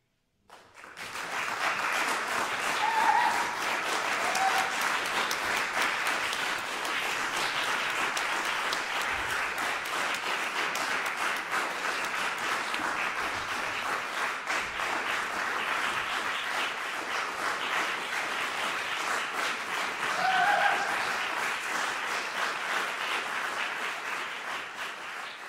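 Audience applauding, beginning about half a second in after a brief silence, holding steady and easing off near the end.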